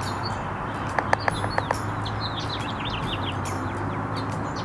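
Small birds chirping repeatedly in short high notes over a steady background rush and low hum, with a quick run of four or five louder, lower-pitched calls about a second in.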